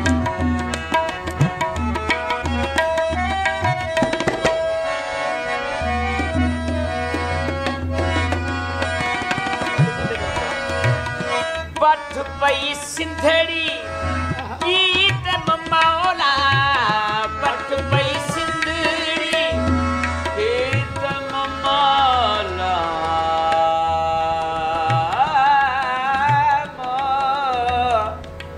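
Harmonium and tabla playing an instrumental passage of a Sufi kalam, the harmonium holding sustained chords over steady tabla strokes. From about halfway through, a wavering, ornamented melody line comes in over them.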